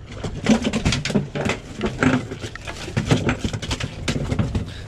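Freshly netted sea bass flapping in a landing net as it is brought aboard: a quick, irregular string of slaps and knocks against the net's metal frame and the boat.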